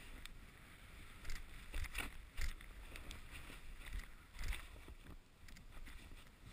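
Snowboard riding down through deep powder snow: a steady rush of snow against the board, broken by several sharp knocks as the board and camera mount jolt over bumps, the loudest a couple of seconds in.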